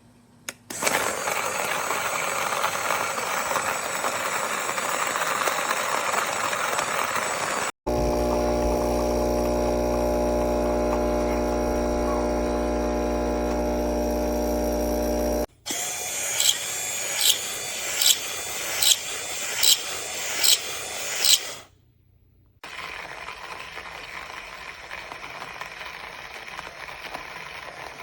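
Small cordless electric conical burr coffee grinder's motor running in several clips cut hard together. One stretch is a steady hum, and another carries a run of about eight sharp clicks, roughly one every 0.6 seconds, before a brief pause and a quieter whirr near the end.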